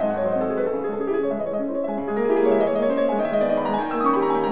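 Piano music playing a quick melody over chords, the notes changing rapidly without a break.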